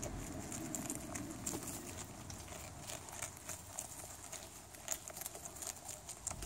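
A group of young rabbits eating a head of cabbage: many quick, irregular crunching clicks of the leaves being bitten and chewed.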